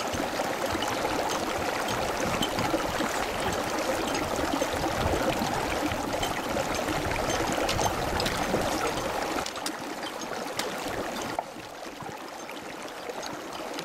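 Steady rush of running water, with a few faint ticks, growing quieter in steps in the last few seconds.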